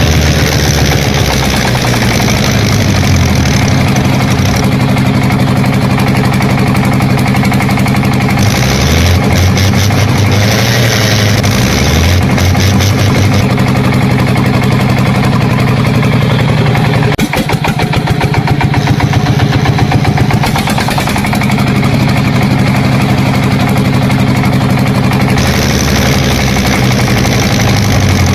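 A tractor-type engine running steadily, with its tone shifting abruptly every few seconds.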